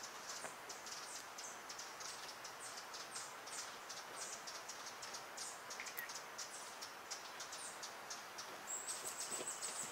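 Faint background chirping: many short, high chirps repeating irregularly, with a thin steady high whistle starting near the end.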